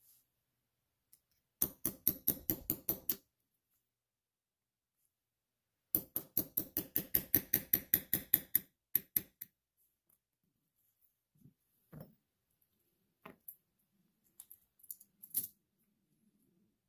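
Small watchmaker's hammer tapping a pin punch to drive a pin through a stainless steel watch bracelet link held in a bracelet holder. It gives a quick run of about nine light metallic taps, a pause, then about sixteen more at about six a second. Near the end come a few scattered clicks of the metal links and pin being handled.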